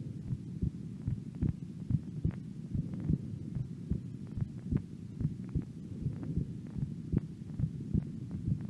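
An 18-year-old woman's resting heartbeat, heard close up: a steady run of short low thumps over a constant low rumble.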